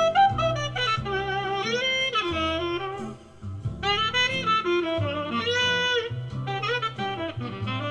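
Jazz track with a melody line over bass notes, played back through an old CORAL passive speaker whose crossover network has been rebuilt with Orange Drop capacitors, as a sound-quality listening test.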